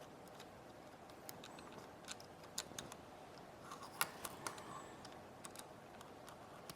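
Scattered small clicks and taps of hand tools working on an iPod nano 6th generation's case and parts, over a steady faint hiss; the sharpest tap comes about four seconds in.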